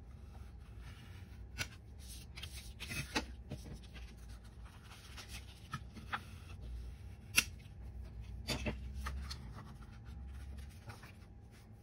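Plastic Cricut scraper rubbed and pressed along the folds of a card-stock envelope to flatten the creases, a dry scraping of plastic on paper with rustling card. A few sharp taps and clicks as the tool and card are handled, the loudest about seven seconds in.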